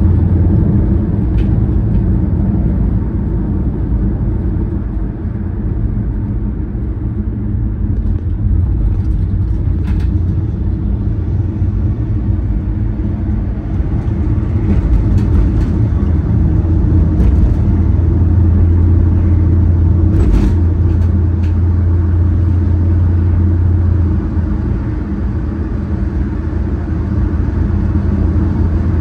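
Steady low rumble of a car's engine and tyre road noise heard from inside the cabin while driving, swelling and easing a little, with a few faint clicks.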